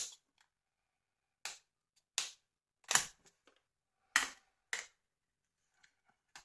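Sharp plastic snaps and clicks from the Nokia 2720a flip phone's housing clips as the case is pried apart, about seven of them at irregular gaps of roughly half a second to a second and a half.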